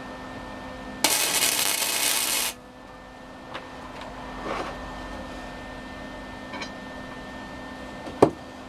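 Flux-core wire welder arc crackling for about a second and a half, running a short bead to weld a nut onto a bolt, then cutting off. A single sharp metallic knock comes near the end.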